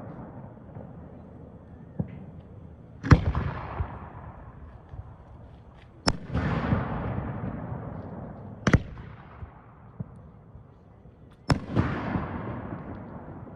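A fireworks display with shells bursting overhead: four loud bangs and one softer one, roughly every three seconds. Each bang trails off over a couple of seconds.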